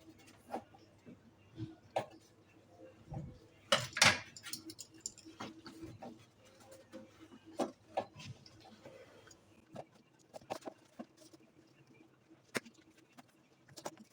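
Scattered clicks, taps and knocks from hands-on work, with a louder clatter about four seconds in, over a faint steady hum.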